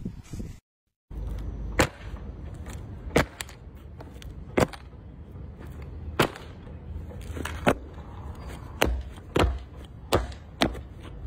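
Heavy lace-up boots stepping on a hard concrete surface, each step a sharp knock. The steps come about every second and a half at first, then quicker near the end.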